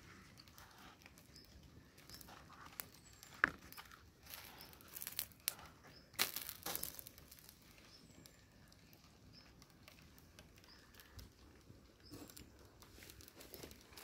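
Scattered rustling, scraping and sharp clicks of the ballet flats being handled on gritty dirt ground, loudest between about three and seven seconds in.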